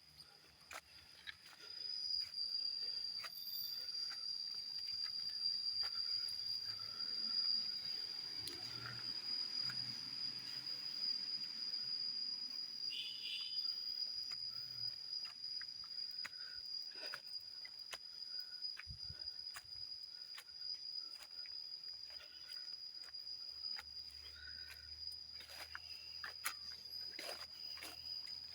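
Insects in the forest giving one steady, unbroken high-pitched drone that starts about two seconds in, with scattered short snaps and rustles.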